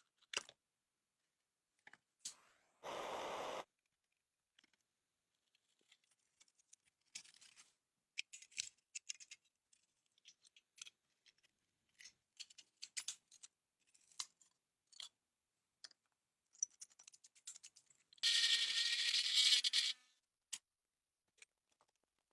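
Small hand-work handling sounds: scattered light clicks, taps and scrapes. A short steady hiss-like burst comes about three seconds in, and a louder, longer burst with a faint whine lasts nearly two seconds near the end.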